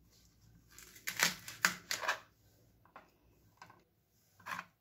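Kitchen knife chopping onion flower stalks against a plastic cutting board. A quick run of about five cuts starts about a second in, followed by a few single knocks further apart.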